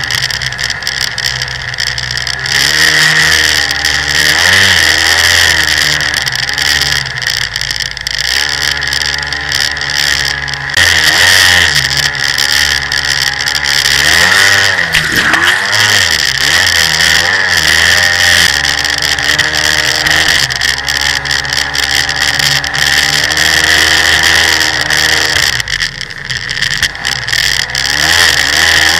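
Jet ski engine running hard, its pitch rising and falling again and again as the throttle is worked, over a steady hiss of spray and wind.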